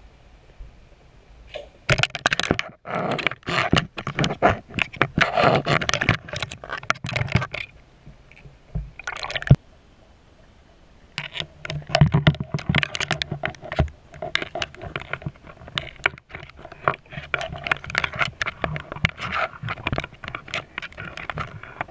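Underwater scraping and knocking on the camera housing: rapid, irregular clicks and scratches in two long spells, with a short burst and a quieter gap between them.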